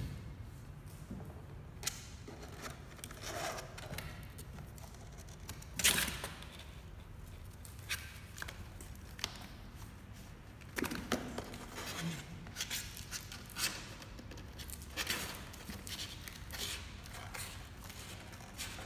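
Kittens' claws scratching and scrabbling on a cardboard box and a wicker basket: scattered short scrapes and taps, the loudest about six seconds in, over a low steady hum.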